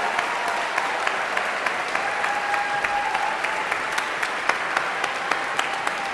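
A concert-hall audience applauding: a steady, dense patter of many hands clapping.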